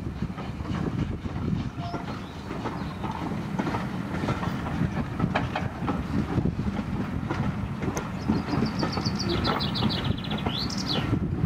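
A twelve-coach passenger train rolling steadily past, a continuous rumble of its carriage wheels on the track with irregular clicks. Near the end a songbird sings one phrase of short high notes.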